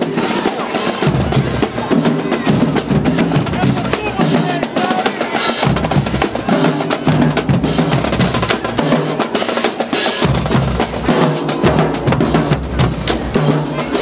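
High school marching band playing on the march: snare and bass drums and cymbals keep a busy beat over a sousaphone and brass bass line.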